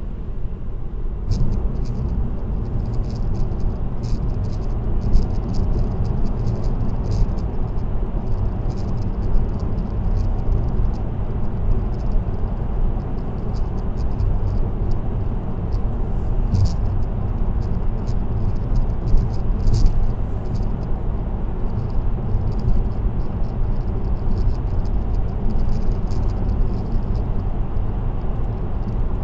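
Road noise of a car cruising on an expressway, heard from inside the car: a steady low rumble of tyres and wind, with rapid, irregular high-pitched ticking or rattling throughout.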